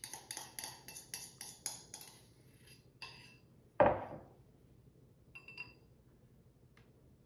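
A spoon scraping and tapping against the inside of a bowl, about four quick clinks a second, as the last of a thick sweet potato mixture is scraped out. About four seconds in, the bowl knocks down onto a wooden cutting board, the loudest sound, followed by a few light clinks of the spoon.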